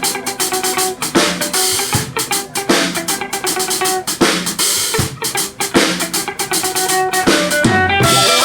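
A live band playing, with the drum kit to the fore: steady kick and snare hits under sustained pitched instrument notes, and a quicker run of drum hits near the end.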